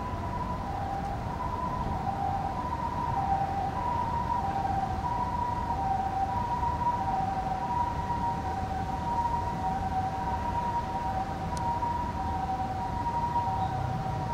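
Ambulance's two-tone hi-lo siren, a higher and a lower note alternating steadily about once a second, over a low background rumble.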